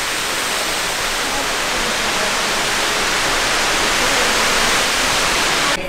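Indoor decorative fountain: a row of water jets spurting and splashing into a basin, a steady loud rush of water that cuts off abruptly near the end.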